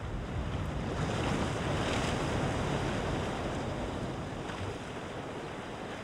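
Sea waves crashing on the rocks and washing back, a steady surf noise that swells louder about a second in and eases off again after about three seconds.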